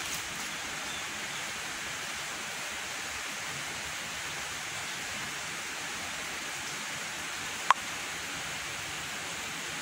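Steady, even hiss of background noise, with one brief high chirp about three-quarters of the way through.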